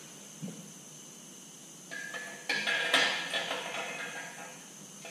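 Loose metal hardware clinking and rattling as it is handled: a run of sharp clinks with a ringing metallic note, starting about two seconds in and dying away over about two and a half seconds.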